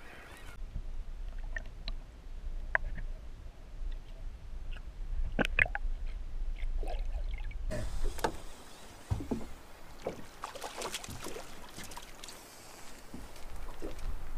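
Wind rumbling on the microphone aboard a small aluminum fishing boat, with light knocks and clicks from gear and water against the hull. About eight seconds in the sound changes to more hiss and a denser run of clicks.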